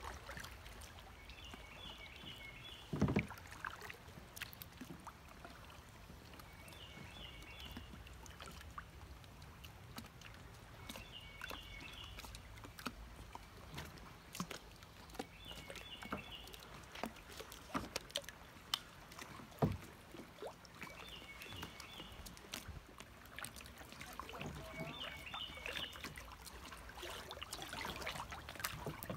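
Kayak moving along a flowing creek, with water lapping and trickling around the hull and scattered light clicks. There are two sharp knocks, one a few seconds in and another about two-thirds of the way through. A bird repeats a short song phrase of a few quick notes about every four to five seconds.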